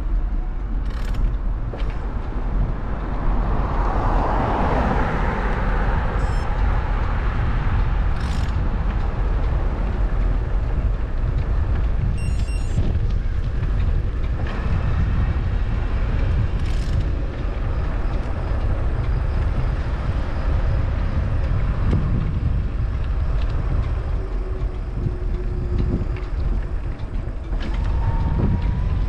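Steady road and wind noise from a moving vehicle, a constant low rumble with hiss, with another vehicle swelling past about four to six seconds in.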